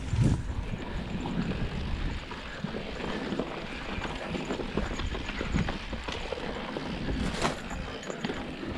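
Mountain bike riding fast down a rocky dirt trail: tyres crunching over dirt and stones and the bike clattering and rattling over the bumps, with a low wind rumble on the microphone. A sharper clack comes about seven and a half seconds in.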